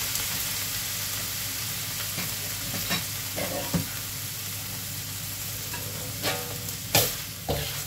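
Minced pork sizzling in a wok, a steady hiss. A metal spatula clinks and scrapes against the wok a few times, most sharply near the end.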